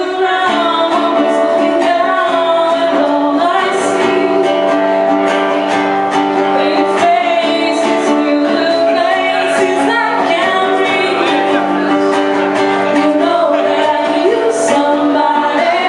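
Live song performance: a singer holding long sung lines over strummed guitar chords with a steady beat.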